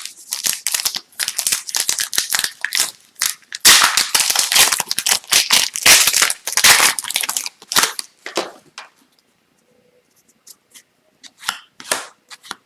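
A foil trading-card pack wrapper being torn open and crinkled, and the cards inside handled, for about eight seconds. After that come only a few light clicks and taps.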